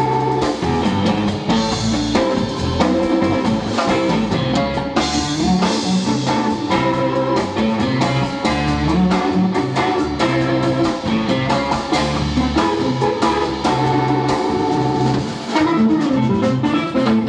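Live band playing: electric guitar and electric bass over a drum kit, at a steady loud level.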